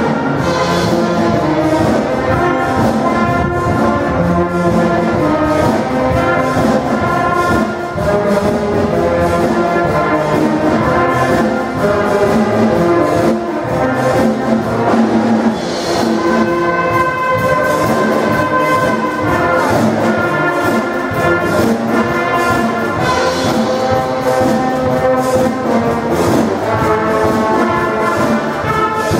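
Youth brass band playing, the brass carrying sustained melody lines over a steady beat.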